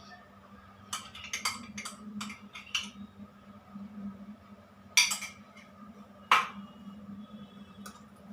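A spoon clinking and scraping against a mixing bowl while cake batter is stirred: a quick run of clinks about a second in, then two louder knocks a little over a second apart. A steady low hum sits underneath.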